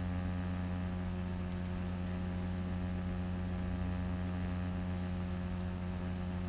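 Steady low electrical hum made of several even tones, with a couple of faint mouse clicks about a second and a half in.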